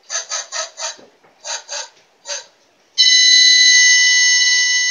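Electronic sounds from a Gotcha Gadgets children's noise-making kit. First a quick run of short beeps, a few more after a pause, then about three seconds in a loud steady alarm-like buzzer tone held for about two seconds.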